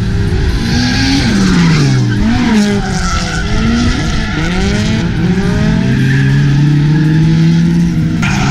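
Toyota Corolla drift car's four-cylinder engine revving, the revs dropping and climbing again several times, then rising and holding high near the end, with tyres skidding and squealing as the car slides.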